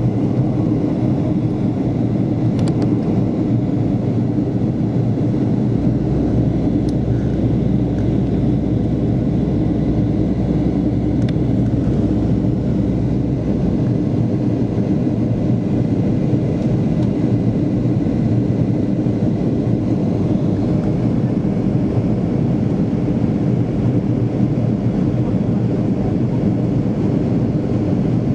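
Steady jet engine and rushing-air noise inside a Boeing airliner's passenger cabin during the climb after takeoff.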